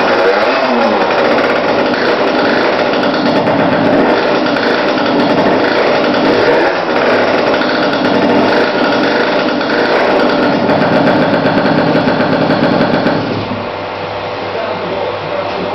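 Aprilia RS50's 50cc two-stroke single engine on its first start, being revved with the throttle blipped up and down. About thirteen seconds in it drops to a quieter, steadier sound.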